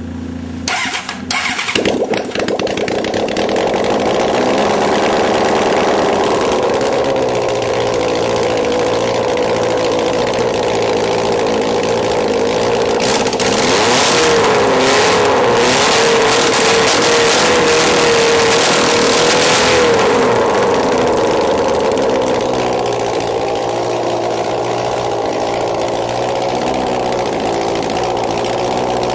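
Engine on a workshop run stand starting up, catching about two seconds in, then running steadily. It is revved and held with a wavering pitch for several seconds about halfway through, then drops back to a steady run.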